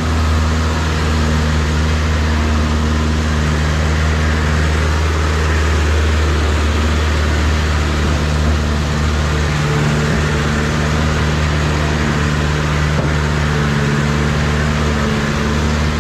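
A vehicle's engine running steadily with a constant low hum, under continuous road and wind noise, as heard riding along in the vehicle.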